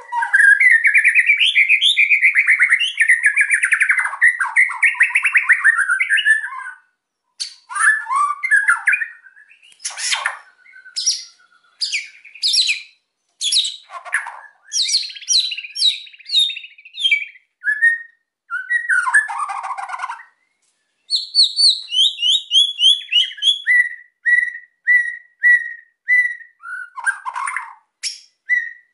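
White-rumped shama (murai batu) singing agitatedly: a long, fast rattling chatter (kretekan) for about the first six seconds, then a string of varied sharp whistles and sweeping notes, ending in short notes repeated about twice a second.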